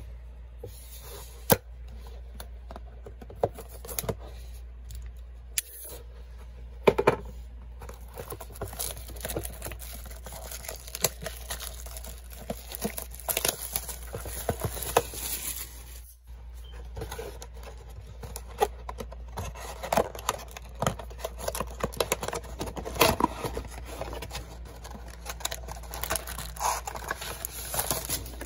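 Clear plastic shrink-wrap being torn and crinkled off a cardboard trading-card box, with a few sharp taps and clicks in the first several seconds, over a low steady hum.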